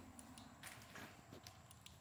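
Faint footsteps scuffing and crunching over a debris-covered floor, with scattered small ticks and clicks; otherwise near silence.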